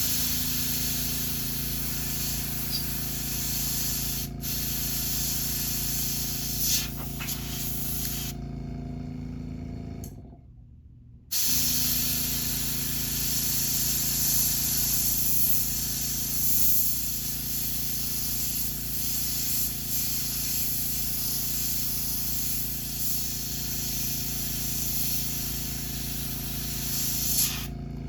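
Airbrush spraying paint onto a wooden crankbait lure, a steady hiss over the steady hum of its compressor motor. The spray stops about eight seconds in, everything goes quiet briefly around ten seconds, then the spraying resumes and runs on until just before the end.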